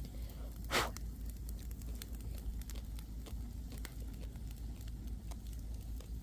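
Campfire of dry branches crackling, with scattered small pops and one louder burst about a second in.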